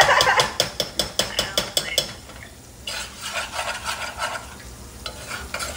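A metal spoon stirring in a saucepan, clicking and scraping against the pot about six times a second, then going on more softly after about two seconds.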